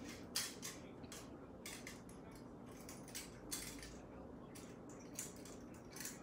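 Faint, irregular soft clicks and taps of a makeup sponge being dabbed against the face, blending concealer under the eyes.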